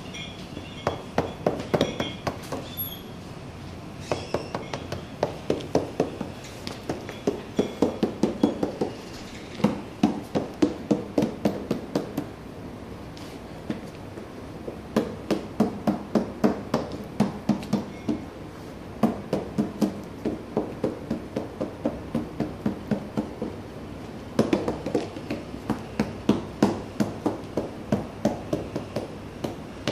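Hands repeatedly striking solid-top rubber floor mats, knocking the interlocking edges together: runs of quick dull thumps about four a second, with short pauses between runs.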